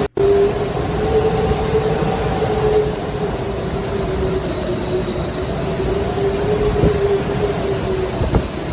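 Hurricane Elsa's wind, a loud continuous roar with a steady low drone running through it, briefly cut out for a moment just after the start.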